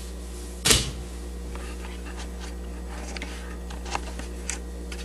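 A person getting up from a metal-framed sling chair: one sharp thump under a second in, then light clicks and rustling, over a steady low hum.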